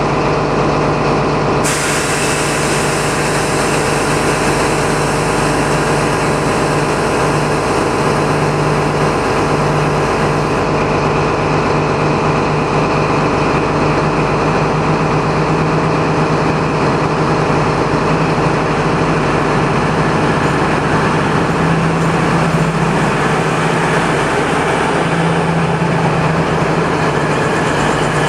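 Class 222 Meridian diesel multiple unit pulling out, its underfloor Cummins diesel engines running loud and steady under power, with a steady low engine tone that shifts slightly in pitch now and then. A hiss joins about two seconds in.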